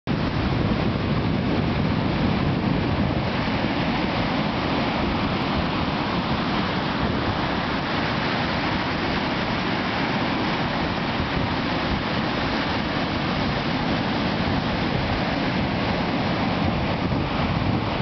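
Pacific Ocean surf breaking and washing up a sandy beach in a steady, unbroken rush, with wind buffeting the microphone.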